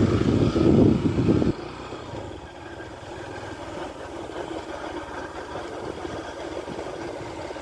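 Motor vehicle engine running close by, its loud rumble dropping sharply about a second and a half in to a quieter steady running.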